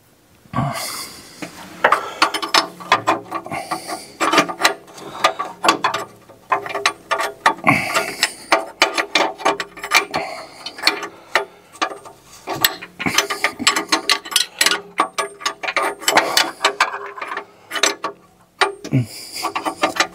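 Combination wrench working the downstream oxygen sensor out of the exhaust: runs of rapid ratchet-like clicking and metal-on-metal ticks as the wrench is swung back and forth, with brief pauses.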